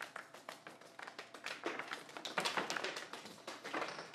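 Quick, irregular clicks and taps of poker chips and playing cards being handled on a card table, loudest a little past halfway.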